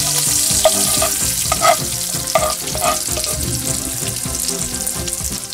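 Whole spices and chopped chillies sizzling in hot oil in a frying pan as they toast, with a metal spoon stirring and knocking against the pan a few times in the first three seconds.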